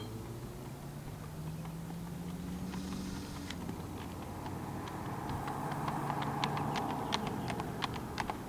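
Tennessee walking horse's hooves clip-clopping on asphalt, the sharp hoof clicks starting about halfway through and coming closer together toward the end. Under them runs the steady hum of car traffic, with the road noise of an approaching car swelling in the second half.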